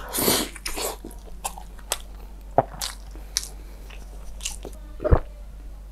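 A person biting into a piece of fried breaded chicken coated in cheese sauce, then chewing it with irregular wet crunches and mouth clicks, heard close up through a clip-on microphone. The bite just after the start is the loudest sound.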